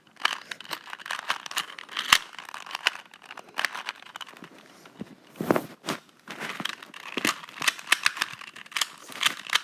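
ShengShou 2x2 speed cube being turned quickly during a solve: an uneven run of many short plastic clicks and clacks as the layers are snapped round.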